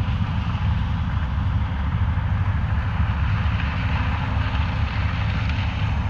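Steady drone of a John Deere S780 combine harvesting corn and a tractor pulling a grain cart, with wind rumbling on the microphone.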